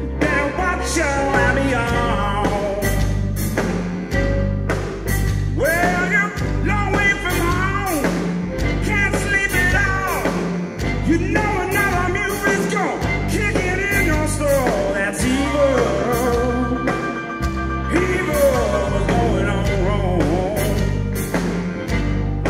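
Live electric blues band playing: a male lead vocal sung over electric guitar, bass and drums, with a steady beat.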